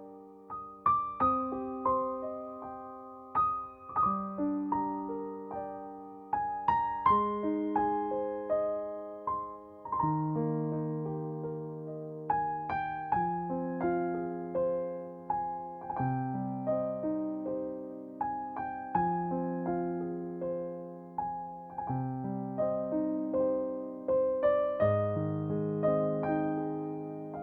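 Background music: a slow, gentle piano piece, notes struck and left to ring and fade.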